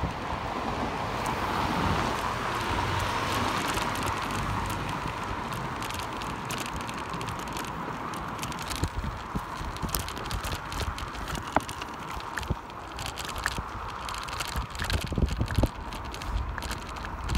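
Wind rushing over the microphone of a moving bicycle, with rattles and clicks as the bike jolts over the road surface. The clicks come more often in the second half.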